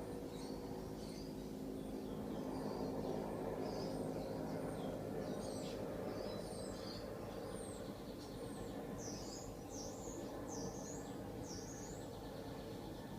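Birds chirping in the background: many short, high calls and quick downward whistles, busiest in the second half, over a steady low hum.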